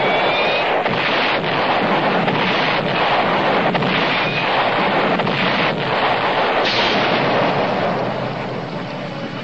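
Cartoon sound effects of a heavy barrage of explosions merging into a continuous loud rumble, taken at first for an earthquake and then for cannon fire; it eases off near the end.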